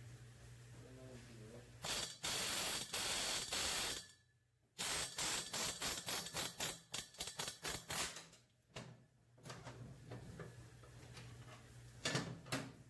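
Pneumatic air hammer with a driver punch working the valve guides of an aluminium cylinder head: one long continuous burst, then a string of short rapid bursts and a few more near the end.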